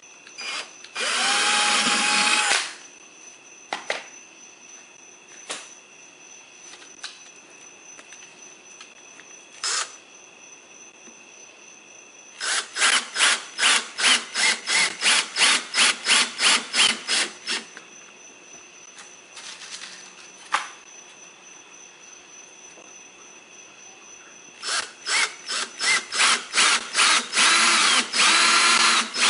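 Cordless drill/driver working through a rubber tread strip into a plastic mower wheel: one short steady run about a second in, then two longer runs of rapid pulses, about four a second, midway and near the end, as the strip is secured to the wheel.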